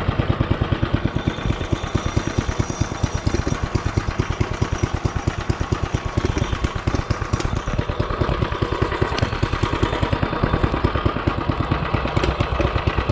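Rebuilt Hisun 196cc single-cylinder four-stroke engine on a mini bike, running with a steady train of firing pulses. The owner says it doesn't sound good and can get no consistency from it; he is struggling to tune its VM22 carburettor.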